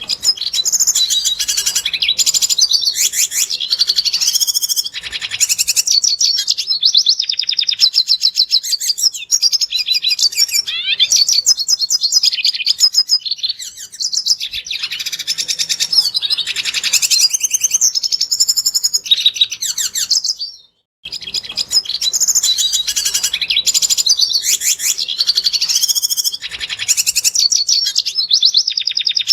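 Red siskin singing: a fast, continuous twittering song of high chirps, trills and buzzy notes, broken by a brief silence about two-thirds of the way through before the song starts again.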